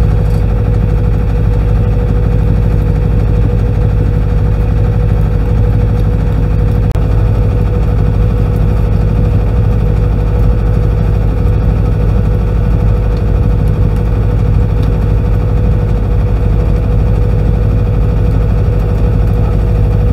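A small sailboat's inboard engine running at a steady speed under way: a constant, even low drone with a steady higher hum above it.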